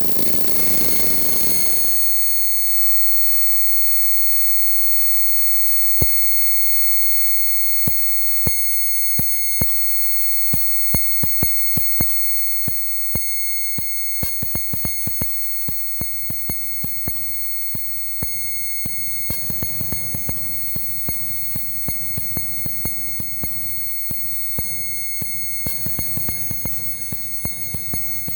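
Electronic synthesizer music: a steady, high-pitched, alarm-like drone tone held throughout, with irregular glitchy clicks coming in about six seconds in and growing busier.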